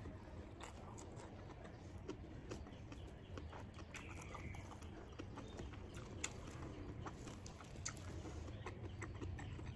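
Faint eating sounds of a person chewing rice with latoh (sea-grape seaweed): soft wet mouth clicks and smacks at an irregular pace.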